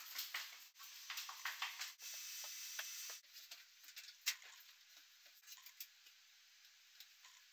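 Footsteps and knocks on a lighthouse's steep metal stair, with rubbing and handling noise from a small waterproof camera. Quick clicks and knocks come first, then about a second of steady hiss, then sparser clicks.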